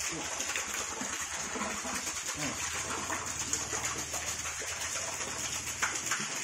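Water pumped up a tall vertical pipe by a submersible pond pump, spurting from the top and splattering down into a pond in a steady patter. A dove coos in the background.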